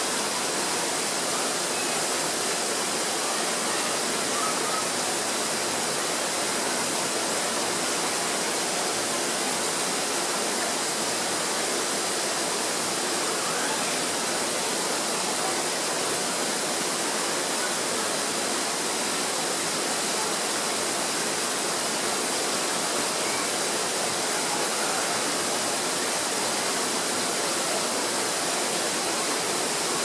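Steady, even rushing hiss that holds the same level throughout, strongest in the high treble.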